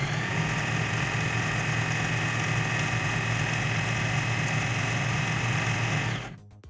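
Usha Janome Dream Stitch electric sewing machine running steadily, its motor whining as the needle sews decorative stitch pattern G into fabric; it stops suddenly near the end.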